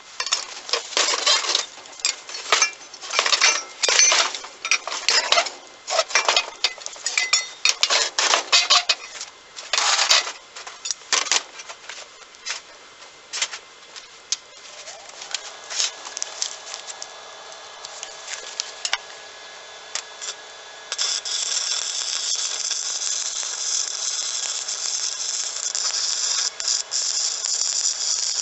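A makeshift forge fire crackling and popping irregularly for about ten seconds. About fifteen seconds in, a steady mechanical hum starts, and from about twenty-one seconds a loud, steady rush of air takes over as the fire is forced.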